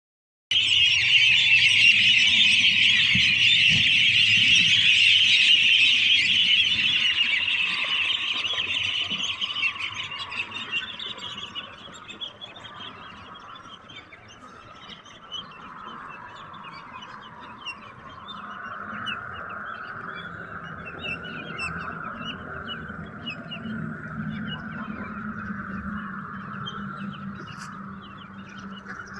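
A flock of young domestic ducks, about four weeks old, calling together in a dense chorus. The chorus is loud for the first ten seconds or so, then falls to a quieter, steadier calling for the rest.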